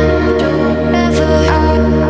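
Background electronic music with sustained synth chords over a steady bass.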